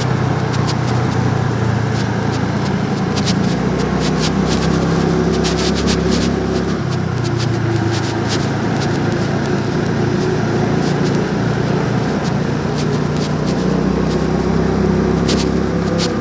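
A Honda Dio 109 cc scooter's single-cylinder four-stroke engine running while under way, its pitch shifting a few times, over steady wind and road noise with scattered sharp clicks.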